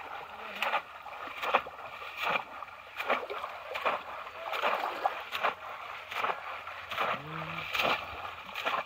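Bamboo polo fish traps plunged again and again into shallow pond water, with legs wading through it: a run of splashes, roughly one every second or a little faster.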